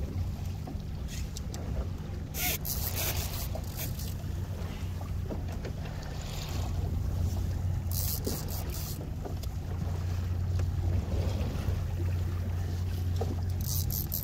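Small boat's motor idling steadily, a low even hum, with wind on the microphone and a few brief scuffs.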